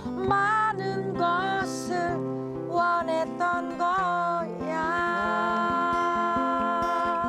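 Acoustic guitar strumming under a sung ballad melody, the voice wavering on its notes and settling into a long held note about five seconds in.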